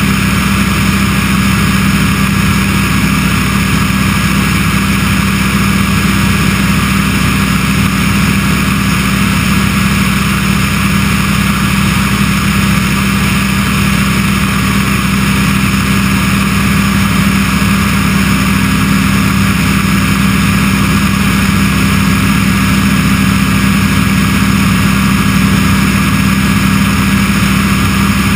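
Remos light-sport aircraft's Rotax 912 engine and propeller droning steadily in cruise, loud and unchanging. Heard from outside the cabin, with wind rushing over the microphone.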